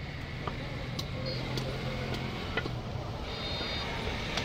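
A butcher's knife knocking a few times on a wooden chopping block as goat meat is cut, over a low steady hum.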